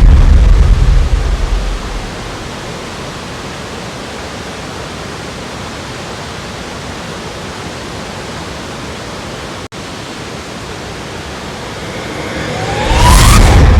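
Waterfall rushing as a steady, even hiss. A deep rumble fills the opening two seconds, fades, and swells back in near the end; there is a split-second dropout about two-thirds of the way through.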